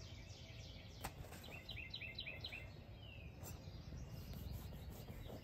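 Faint outdoor background in which a small bird chirps a quick run of about six high notes, then one short falling note. A single light click sounds about a second in.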